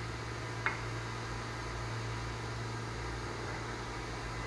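Steady low mechanical hum, with one light click about a second in.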